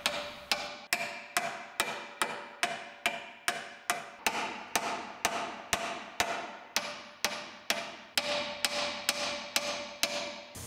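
Hammer blows on the metal radar mounting bracket at the front of a 2019 GMC Yukon, knocking the bent bracket back into alignment. The strikes come at a steady rhythm of about two and a half a second, some two dozen in all, with a ringing tone under them. They stop just before the end.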